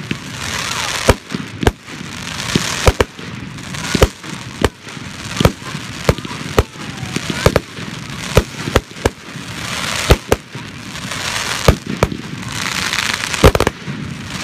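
Aerial firework shells bursting in quick, irregular succession, with sharp bangs often several a second apart. Between the bangs there is a continuous hissing crackle.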